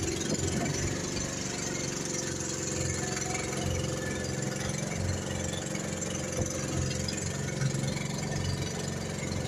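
Outrigger fishing boat's engine running steadily, a constant low hum.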